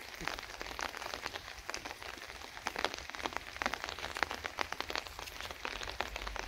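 Light rain falling, many small drops ticking at an irregular rate.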